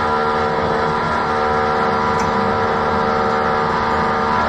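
A steady machine hum, several fixed tones over a low rumble, holding level throughout.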